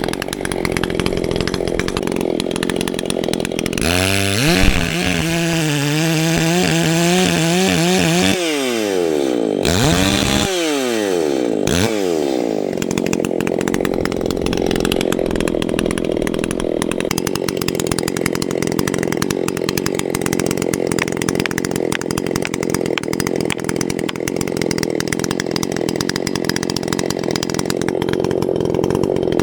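Chainsaw running and cutting into pine wood. Between about 4 and 12 seconds in, its pitch sags and recovers several times as the chain loads up in the cut, then it settles into a steady cut.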